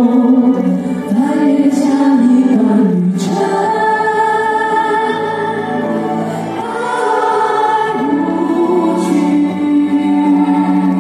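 Live choral song: a choir and a female lead singer singing a medley together, amplified through the stage sound system.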